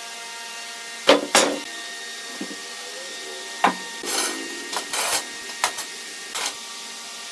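Heavy squared wooden timber being handled on a workshop floor: two sharp knocks about a second in, another midway, then scraping and a few shorter knocks of wood against wood and floor. A steady faint hum runs underneath.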